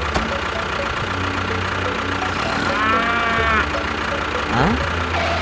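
Engine running steadily at idle. About three seconds in, a short pitched animal-like call rises and falls over it, and a rising glide follows near the end.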